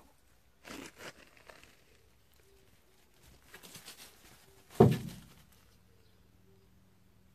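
Crunching footsteps on gravel and dry leaves in two short spells, then one loud, dull thump a little under five seconds in.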